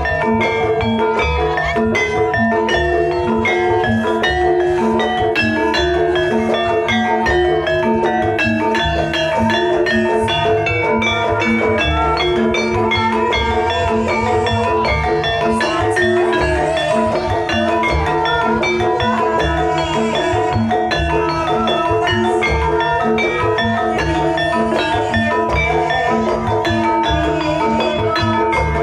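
Javanese gamelan music: struck metallophones ringing in a busy pattern over a steady low beat.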